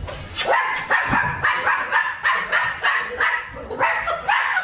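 Small puppy yipping over and over in short, high-pitched barks, about four a second.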